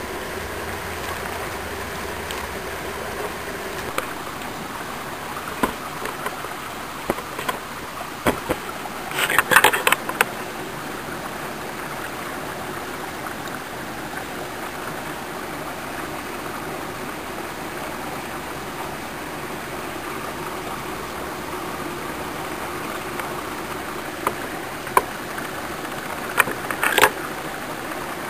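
Shallow creek water running steadily over stones, with scattered small clicks and knocks, a brief louder crackling burst about nine seconds in, and a few sharp ticks near the end.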